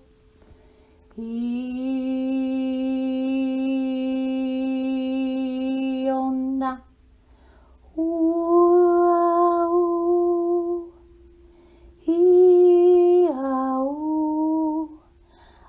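A woman's voice toning wordlessly in three long held notes, each lasting a few seconds with short pauses between. The first note is the lowest, the second is higher, and the third steps down in pitch partway through.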